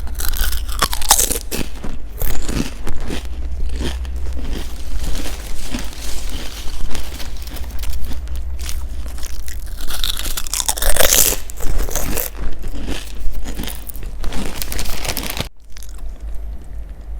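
Close-miked crunchy food being bitten and chewed, in irregular crackling crunches, loudest about a second in and again around ten seconds in, over a steady low hum.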